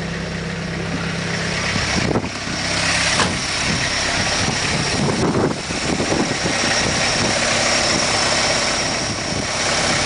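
Van engine idling steadily, with a few short knocks and handling sounds about two, three and five and a half seconds in.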